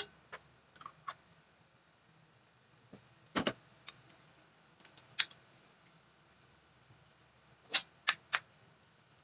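Metal spatula knocking and scraping against an aluminium wok while stirring a thin sauce: scattered sharp clicks in small clusters every couple of seconds, the loudest near the end.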